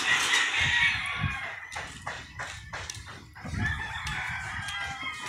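A rooster crowing, once at the start and again in the second half, with a few low thuds underneath.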